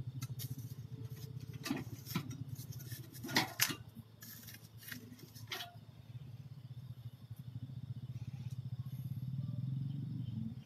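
Biomass gasifier cookstove burning hard with its air supply opened up: a steady low rumbling drone with a fast flutter. Over the first half or so, a run of sharp clacks and knocks as tongs work a burning piece of firewood out of the stove.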